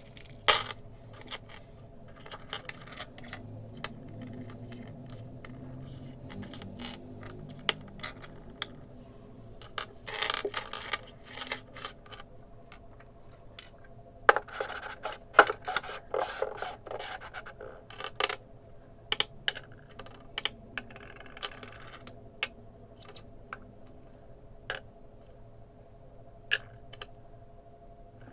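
Miniature toy kitchen pieces being handled: scattered small, hard clicks and taps, with two spells of quick clattering and scraping, one about ten seconds in and a longer one around the middle.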